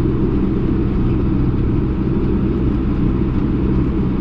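Case 1090 tractor's diesel engine running steadily under load while pulling a sprayer, heard from inside the cab as a constant low drone.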